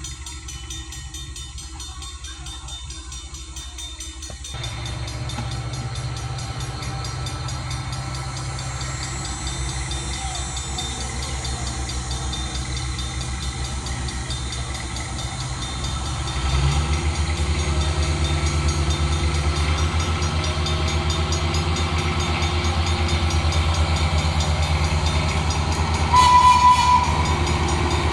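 Diesel locomotive engine running with a low steady drone that comes in about four seconds in and steps up louder about sixteen seconds in. Near the end comes a brief loud, high, steady tone about a second long.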